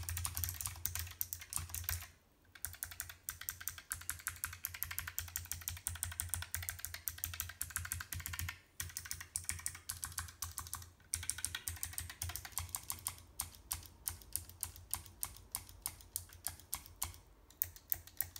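Fast typing on a Keychron K1v4 low-profile mechanical keyboard with Gateron blue (clicky) switches: a dense run of sharp key clicks, broken by short pauses about two, eight and eleven seconds in.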